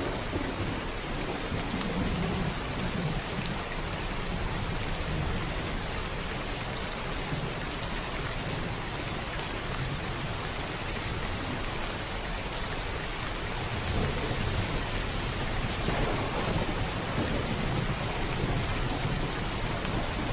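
Steady heavy rain drumming on a rooftop, with low rolls of thunder rumbling about two seconds in and again about two-thirds of the way through.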